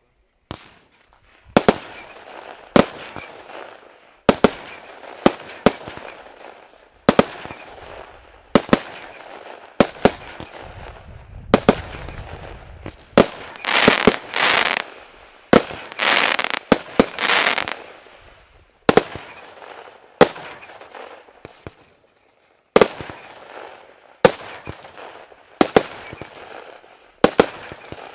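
PT559 Neon firework battery going off shot after shot: a sharp bang roughly every second or so, each trailing off. A denser, louder cluster of shots comes about halfway through, then a brief pause before the shots resume.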